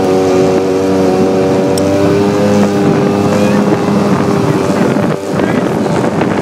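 Small motorboat's engine running under way, a steady drone whose pitch sinks slightly over the first few seconds. It then merges into a rushing noise of wind on the microphone and water, with a brief dip about five seconds in.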